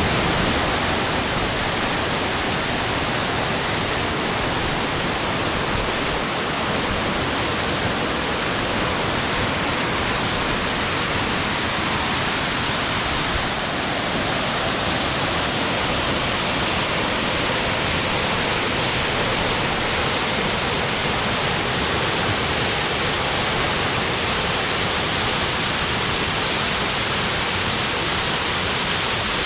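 Waterfall: water falling and splashing in a steady, dense rush.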